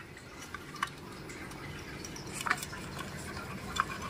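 A few light, scattered clicks and taps of plastic parts being handled and fitted together by hand: the housing of a power-folding car mirror's retract mechanism going back together.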